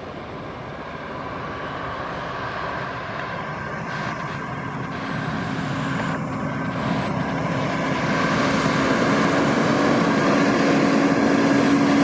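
Massey Ferguson S8740 tractor towing a square baler approaches along a road, its engine growing steadily louder as it nears. A steady engine hum strengthens in the second half, with a faint high whine.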